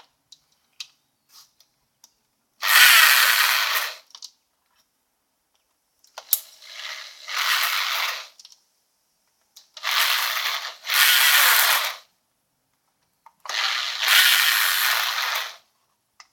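Cordless drill-driver run in four bursts of one to two seconds each, some in two quick pulls, spinning out bolts during an engine teardown.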